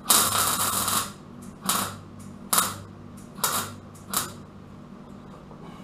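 Welder tack-welding the steel rear wheel-arch repair panel: one crackling burst about a second long, then four short tacks spaced under a second apart.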